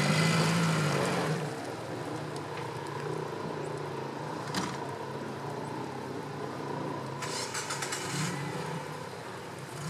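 Off-road 4x4 engine running, louder for about the first second and then settling to a lower steady drone. A single sharp knock comes about four and a half seconds in, and a brief scraping rustle about seven seconds in.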